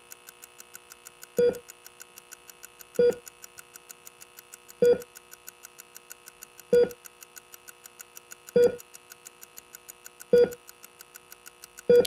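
Film sound design: fast, even ticking, about five ticks a second, over a steady held drone, with a louder low pulse about every 1.8 seconds.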